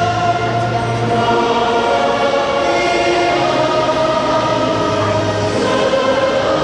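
Choral music: a choir singing long held notes over low sustained accompaniment.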